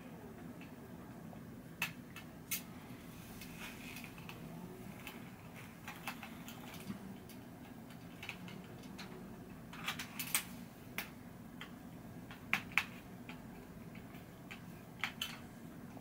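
Metal bicycle spokes clicking and ticking against each other and the rim as they are threaded through the hub and rim of a front wheel being laced. The clicks are light and irregular, with a few sharper pairs, over a faint steady hum.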